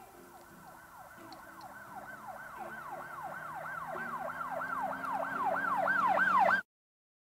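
Police siren sound effect, a fast repeated falling wail about three times a second, growing steadily louder as if approaching, over low background music; it all cuts off suddenly near the end.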